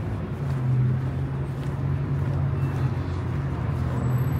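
Steady street traffic noise, with car engines running in a continuous low hum.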